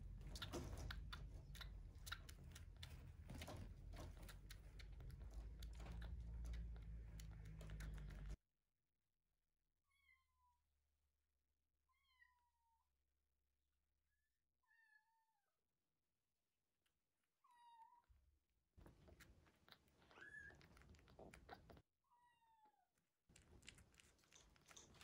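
Week-old kitten mewing faintly, about seven short high mews that fall in pitch, spaced every two to three seconds from about ten seconds in. Before them, a dense patch of clicking and rustling over a low hum that stops abruptly about eight seconds in.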